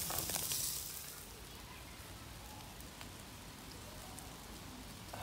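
Lamb kebabs sizzling and crackling on a charcoal grill, a loud hiss for about the first second that then settles to a quieter steady hiss with scattered small ticks.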